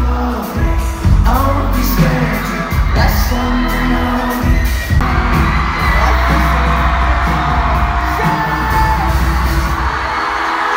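Live pop band playing in an arena, with a lead vocal over heavy bass and drums, recorded on a phone from among the audience. Crowd noise sits under the music and grows fuller about five seconds in.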